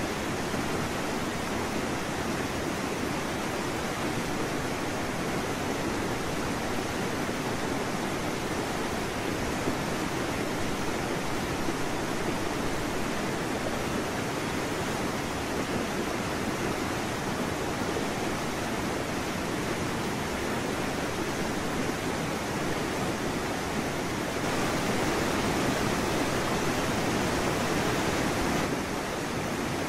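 Steady rushing noise with no distinct events, a little louder for about four seconds near the end.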